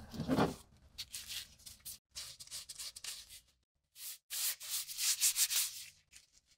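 A rusty hatchet is picked up off a wooden tabletop with a low knock, then turned and rubbed in gloved hands. This gives two stretches of dry scraping of nitrile glove on the rusty steel head and handle.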